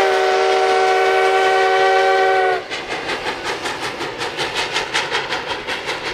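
Whistle of a Baldwin 2-8-0 Consolidation steam locomotive sounding one long chord blast that cuts off about two and a half seconds in. Then the locomotive's exhaust chuffs in a quick, even beat as it pulls a freight train upgrade.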